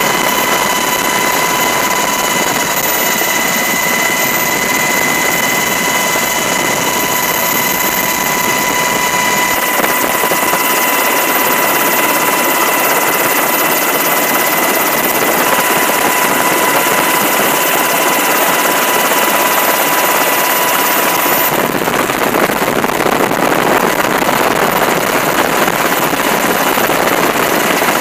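UH-60 Black Hawk helicopter in flight, heard from inside the cabin with the door open: a steady, loud roar of rotor and turbines with a constant high whine. The sound shifts abruptly about ten seconds in and again about twenty-one seconds in.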